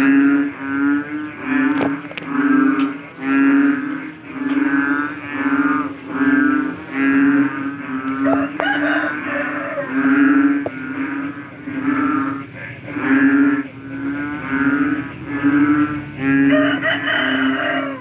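Frog calling loudly after rain, one low droning call after another at about one and a half a second.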